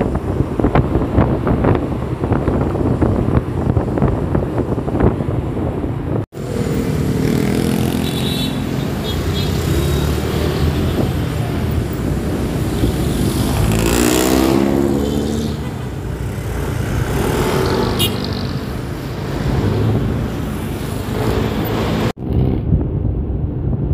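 Motorcycle riding through city traffic: wind buffeting the microphone, then the engines of nearby motorcycles and cars, with one engine's pitch sliding up and down about two-thirds of the way through. The sound cuts sharply twice where clips are joined.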